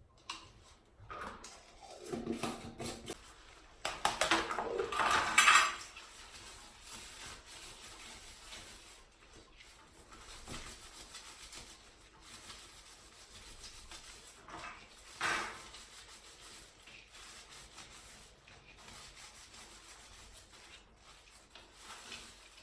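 Household objects being handled: rubbing, rustling and light knocks and clinks that come in a few louder spells with quieter handling between.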